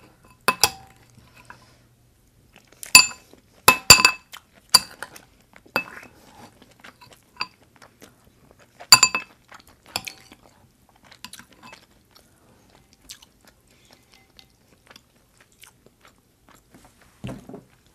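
Metal spoon clinking against a ceramic rice bowl, a series of sharp ringing clinks in the first ten seconds as sauce and rice are scooped. Soft close-miked chewing fills the gaps.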